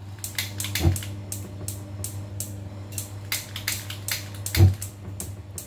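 Gas stove being lit: a fast run of sharp igniter clicks, several a second, over a steady low hum, with two heavier knocks about a second in and near the end.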